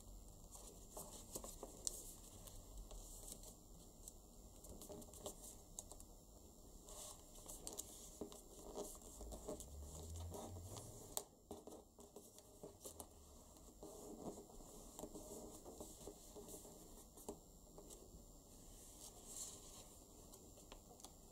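Faint rustling and creasing of origami paper being folded by hand, with many small scattered clicks and scrapes.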